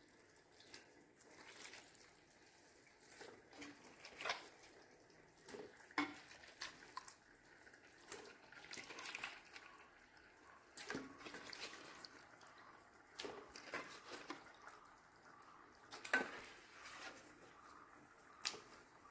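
Raw chicken pieces being dropped by hand into a metal pot of thick curry masala: soft wet plops and squelches at irregular intervals.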